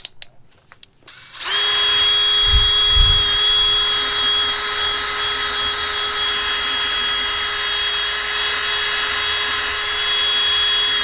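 Electric drill spinning a wire brush against a carburetor body to scrub off caked-on dirt. It starts about a second and a half in after a few handling clicks, then runs at a steady speed with a high whine and a hiss of bristles.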